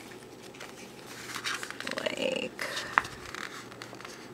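Paper rustling as a sticker book is handled on a desk, with a short high whine-like tone in the middle and a sharp tap about three seconds in.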